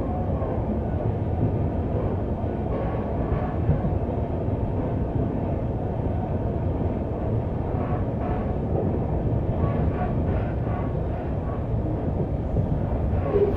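Steady running noise of a moving passenger train: wheels rumbling on the rails, heard from aboard a coach.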